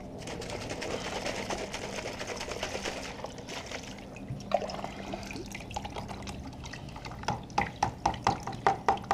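Distilled water being filled and sloshed in a plastic motorcycle coolant reservoir to rinse it. From about seven seconds in, the water glugs out of the reservoir's spout into a drain pan in quick regular gulps, about four a second.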